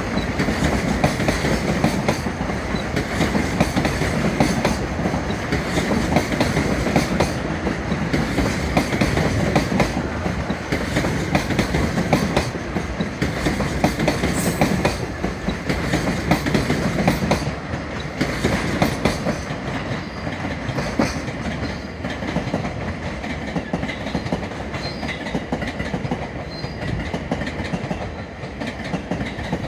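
Freight train wagons rolling past, their wheels clattering steadily over the rail joints, growing a little quieter in the last third.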